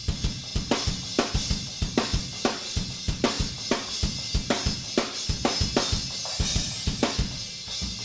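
Multitrack drum kit playing back a steady rock beat: kick and snare hits on a fast 16th-note grid, with the snare landing about every second beat, under a continuous hi-hat and cymbal wash. The kick and snare have been re-sampled, with ReaGate triggering EZdrummer samples from the original hits, while the hi-hat and overheads are the original recording.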